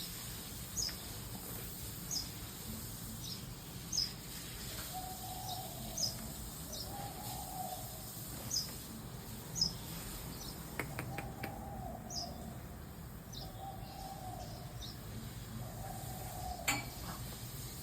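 Quaker parrots (monk parakeets) calling: short high chirps every second or two, with lower warbling calls every few seconds and a few clicks about two-thirds of the way through.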